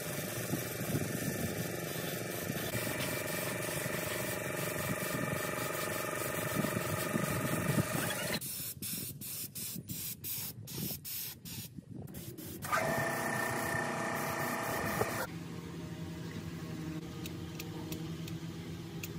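Gravity-feed air spray gun hissing as it sprays paint, broken in the middle by a run of short trigger bursts before a steady spray resumes. About 15 s in the hiss gives way to a quieter, steadier background with faint ticks.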